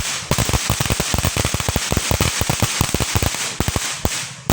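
Golden Rooster firework fountain crackling: a dense run of sharp pops, about ten a second, over a steady hiss of spraying sparks.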